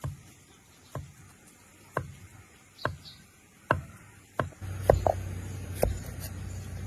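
Knife chopping on a cutting board in slow single strokes, about one a second. A steady low hum comes in about four and a half seconds in.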